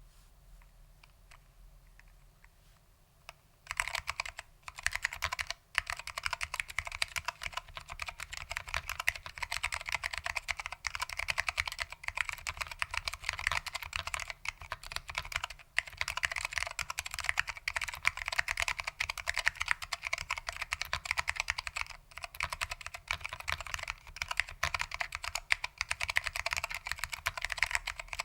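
Fast, continuous typing on a Lunar AEK 65 keyboard with foam-damped SKCM Orange Alps switches, starting about four seconds in after a near-quiet opening, with only brief pauses between bursts of keystrokes.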